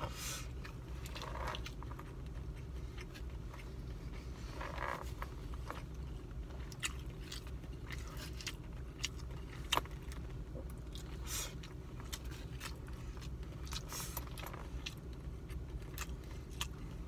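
A person chewing and eating, with scattered clicks and light scrapes of a plastic fork against a foam takeout container and a couple of short mouth sounds, over a steady low hum inside a car.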